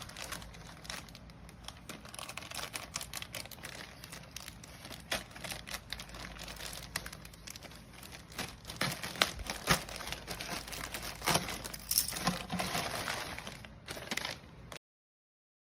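Plastic being handled and crinkled, with irregular crackles and occasional sharper clicks and knocks, breaking off abruptly near the end.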